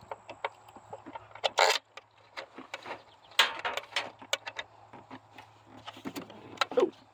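Scattered clicks, clinks and knocks of hands handling metal parts and tools under a car's hood, with louder clinks about one and a half and three and a half seconds in, over a faint steady hum.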